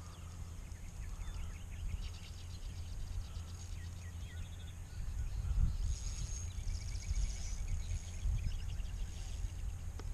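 Outdoor riverside ambience: a steady low rumble of wind and flowing water, with small birds chirping and trilling now and then, the busiest trill about two-thirds of the way through.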